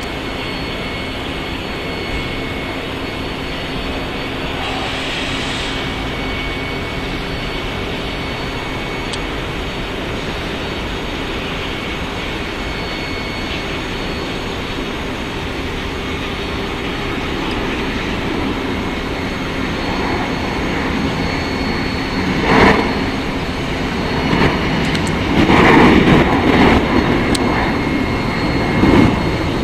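Embraer ERJ-145XR regional jet's twin Rolls-Royce AE3007 turbofans running with a steady rush and faint held whine tones as it lines up for takeoff. The engines swell louder in the last third as it spools up for the takeoff roll, with several sudden louder surges near the end.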